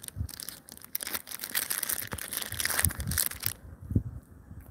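Crinkling and crackling, as of a plastic snack packet being handled and torn open, for about three seconds, with a few dull low thumps in between.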